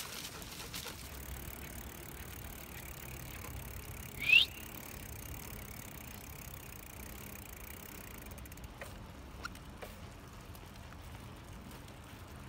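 Bicycle rolling along a paved path: steady low tyre and wind noise, with one short, sharp rising squeak about four seconds in and a few faint clicks near the end.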